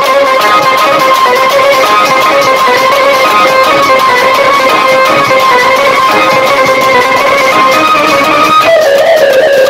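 Loud marfa drum music: the drums beat a fast, even rhythm under a held, wavering melody that moves to a new note near the end.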